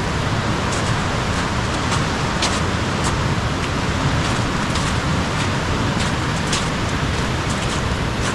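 Steady rushing noise of fast-flowing water, like a mountain stream, with a few faint irregular clicks.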